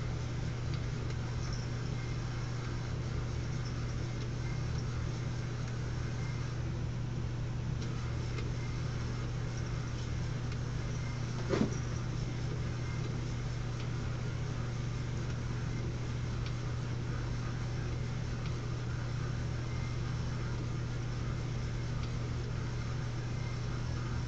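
Steady low motor hum from a battery-powered automatic laser cat toy running on the carpet. One short sharp sound breaks in about halfway through.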